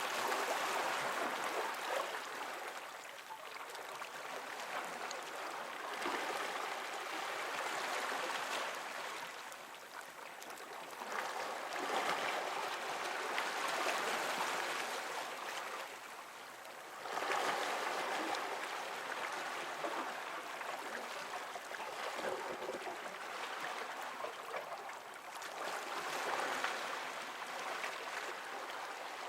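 Water washing and lapping against rocks close to the microphone, a continuous wash that swells and eases every few seconds.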